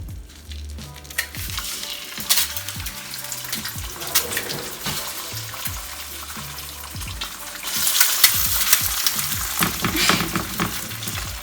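Eggs sizzling and crackling in a hot frying pan, with occasional clicks of a utensil; the sizzle grows louder about eight seconds in.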